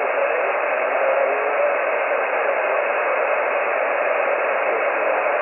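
HF transceiver tuned to a 20-meter single-sideband frequency, giving out steady band-noise hiss between transmissions, thin and narrow like a radio voice channel, with faint wavering tones underneath.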